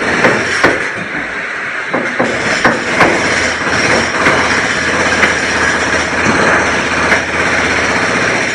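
Construction site din: heavy machinery running steadily with irregular sharp knocks and bangs, like hammering on metal, about a dozen of them.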